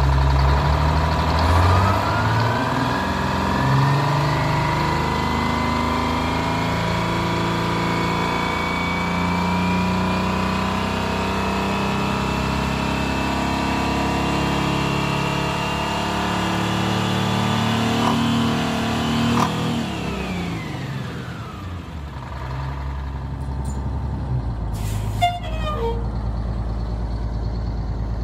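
The bus's side-mounted Detroit Diesel two-stroke engine is revved up from idle and its pitch rises over several seconds. It is held at high revs for about seventeen seconds, then released, and the pitch slides back down to a low idle. A short sharp hiss with a falling squeak comes a few seconds after it settles.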